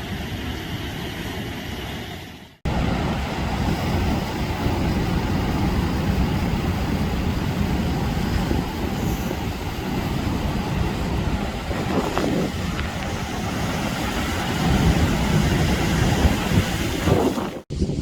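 Steady, dense low rumbling noise, broken by two abrupt cuts, about two and a half seconds in and near the end.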